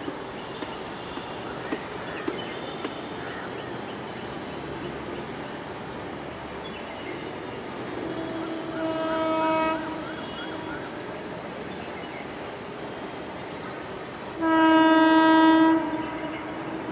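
WAP 7 electric locomotive's horn sounding twice as the train approaches: a first blast about nine seconds in, then a much louder one of about a second and a half near the end.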